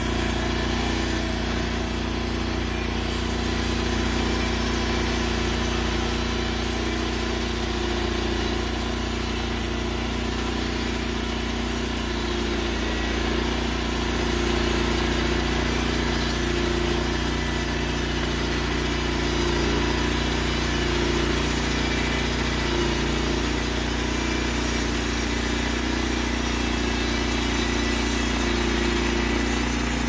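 Timbery M280 portable band sawmill running steadily, its gasoline engine driving the band blade as it cuts lengthwise through a log.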